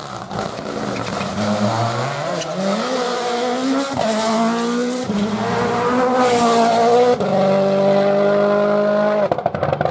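Rally car engine accelerating hard, its note climbing and dropping back through several gear changes, then held high at full throttle. Near the end it breaks into a burst of rapid crackling pops.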